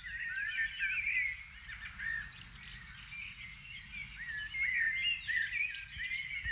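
Several small songbirds chirping and warbling at once, many short quick notes overlapping: a woodland bird chorus.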